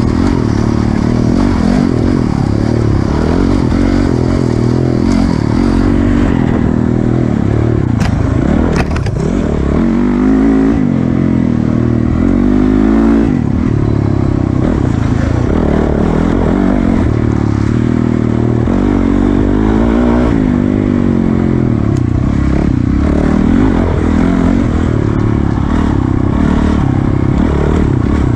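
Dirt bike engine running hard under the rider, its pitch rising and falling continuously as the throttle is opened and closed along the trail.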